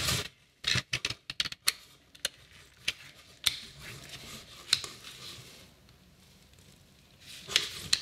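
Plastic clicks from a cheap 200 W H200 hot-staple plastic welder gun being handled and its trigger pressed: a quick run of clicks about a second in, then single clicks every half second or so. There is no hum of the tool running; the gun has burnt itself out and no longer turns on.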